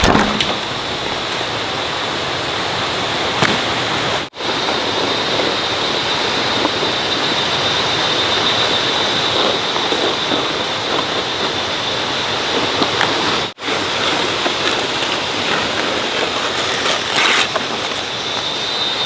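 Steady rushing noise, like running water or rain, with a constant thin high tone over it, cut off briefly twice.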